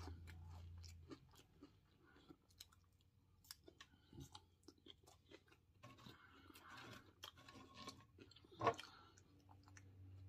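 Faint, close-up chewing of fried catfish and salad: wet mouth smacking with small crunches. One sharper click near the end stands out as the loudest sound.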